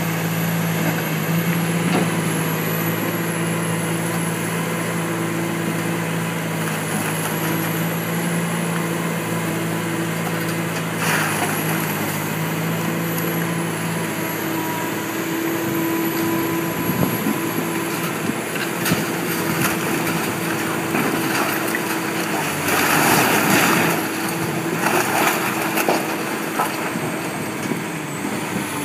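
Komatsu hydraulic excavator's diesel engine running steadily while its bucket pulls down a fire-gutted brick building. Bricks and debris crash down several times. The loudest crash comes about three-quarters of the way through, as a section of wall collapses.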